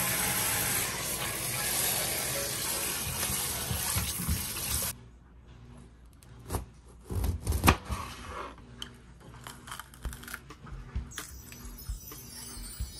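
Kitchen faucet running water into a plastic bowl of green bell peppers in a stainless steel sink, shut off abruptly about five seconds in. Then a knife cuts into the peppers on a plastic cutting board, with scattered taps and knocks as they are sliced and handled.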